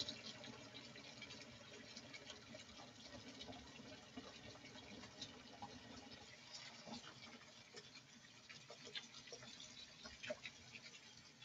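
Kitchen faucet running faintly into a sink full of wet wool as it fills with hot water. About halfway through, the pull-down spray head is drawn out, and the steady pour gives way to water spattering and dripping over the wool.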